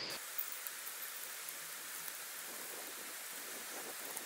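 Steady, even outdoor hiss with a few faint light clicks.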